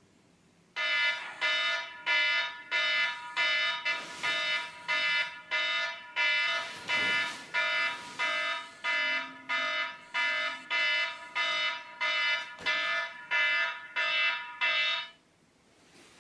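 Wake-up alarm beeping in a steady, fast rhythm, about one and a half beeps a second. It starts about a second in and cuts off about a second before the end.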